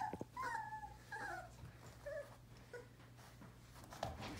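One-month-old sheepadoodle puppy whimpering: about four short high whines in the first three seconds, the later ones fainter. A soft bump near the end.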